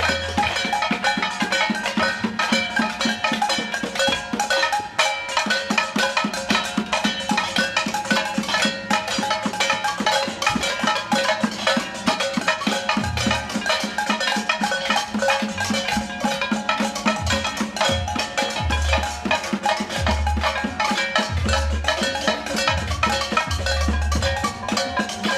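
Dense, continuous clatter of many hand-struck percussion instruments and ringing metal, like pots, pans and drums banged in a crowd noise demonstration. Low booming pulses come and go in the second half.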